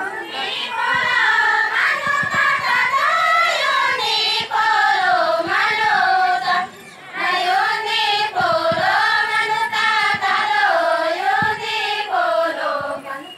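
A group of women singing a folk song together in unison, one wavering melody with a short pause about seven seconds in.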